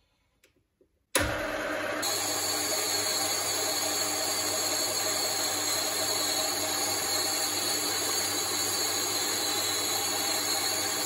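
Small benchtop metal lathe running at a steady speed, its chuck spinning; the sound starts abruptly about a second in.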